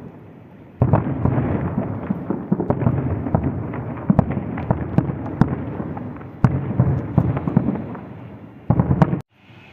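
Fireworks going off in a dense, continuous crackle of many quick bangs and pops, starting about a second in, with a louder volley near the end that cuts off suddenly.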